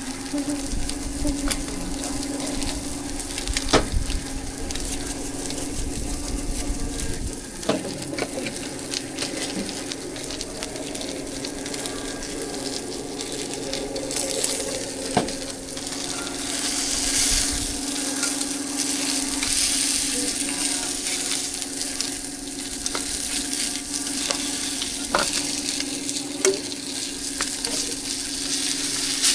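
Pancakes frying on a hot pan at a street-food stall, with a steady sizzle and a few sharp clicks and scrapes of a spatula. A steady low hum runs underneath.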